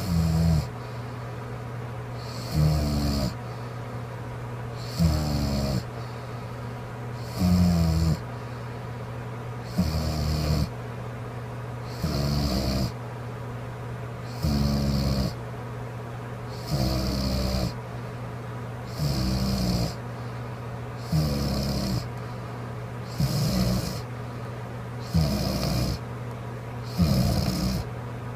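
A woman snoring in her sleep: about a dozen short snores, one every two seconds or so, over a steady low hum.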